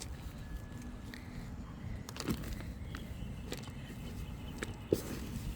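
Hands rummaging through loose soil in a potato grow bag: soft rustling with a few small clicks and crackles, the sharpest near the end.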